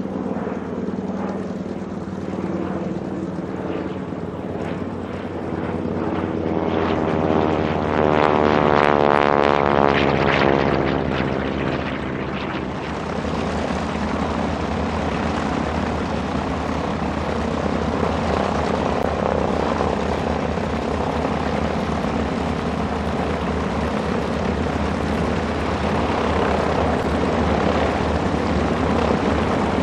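Piston-engine warbirds, a TBM-3E Avenger and a second radial-engined plane, flying past overhead. Their engine drone swells to its loudest about eight to eleven seconds in, with a sweeping, phasing tone as they pass. Then, from about thirteen seconds in, the Avenger's Wright R-2600 radial engine runs steadily at low power as it taxis.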